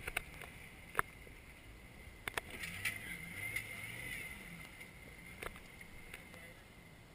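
Faint, distant engine of an off-road Jeep crawling over boulders, building up for a couple of seconds in the middle, with a few sharp clicks and knocks.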